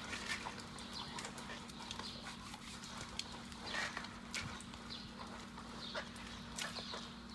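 A horse being washed by hand: faint wet rubbing on its soapy coat and scattered small clicks, with one louder rushing sound about four seconds in, over a steady low hum.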